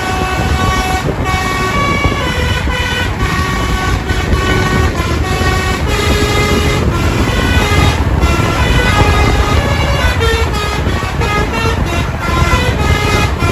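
A bus's telolet horn, a set of multi-tone air horns, playing a quick tune of short notes that step up and down in pitch and come faster near the end, over a steady low rumble.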